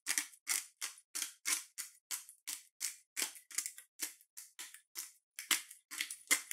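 Hand-twisted pepper grinder (a glass spice bottle with a grinding cap) cracking peppercorns in short, even grinding bursts, about three twists a second.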